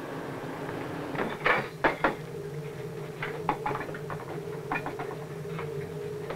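Plates and dishes clinking and clattering as they are set down and handled on a table: a cluster of sharper clatters about a second in, then lighter scattered clinks, over a steady low hum.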